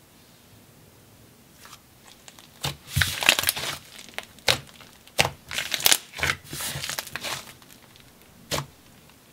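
Yellow clay slime being squished and kneaded by hand, giving crackly, crinkling squelches. They come in a run of bursts starting about three seconds in and easing off after about seven seconds, with one short one near the end.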